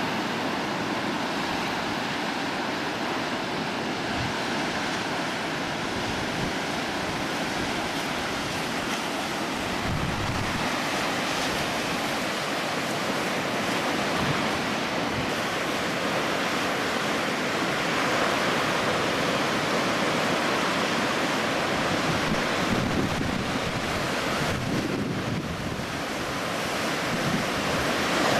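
Ocean surf breaking and washing in a steady roar of noise, growing a little louder past the halfway point, with wind rumbling on the microphone.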